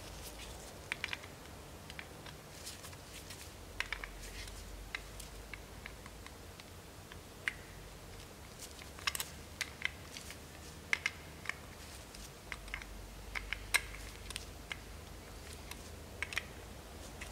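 Faint, scattered light clicks and taps of a small pit-bike carburetor being handled in gloved hands as its idle screw is turned in.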